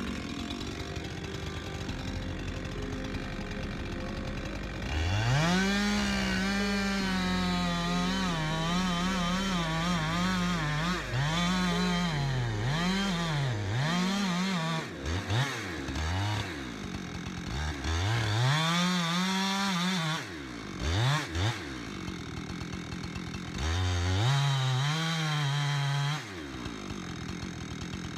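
Husqvarna 372 two-stroke chainsaw with a 32-inch bar and skip-tooth chain, idling, then revved to full throttle about five seconds in. The revs waver up and down under load as it cuts through the trunk. It then drops back toward idle and is blipped up again in several short bursts before settling to idle near the end.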